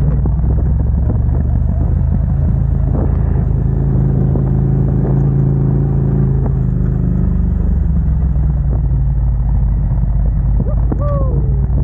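Ducati Monster 797's air-cooled L-twin engine running steadily on the move; its note changes about two-thirds of the way through, and a brief falling squeal comes near the end.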